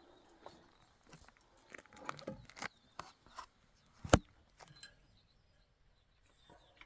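Scattered light knocks and clicks of hand construction work, with one sharp, loud knock about four seconds in.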